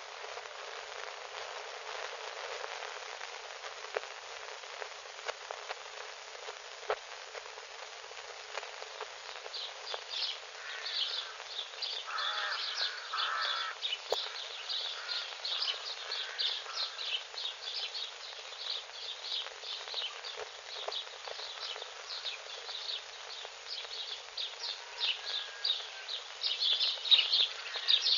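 A steady hiss with scattered clicks, then from about ten seconds in a flock of birds chirping quickly and without pause, growing busier toward the end, with a couple of harsh caws at around twelve to fourteen seconds.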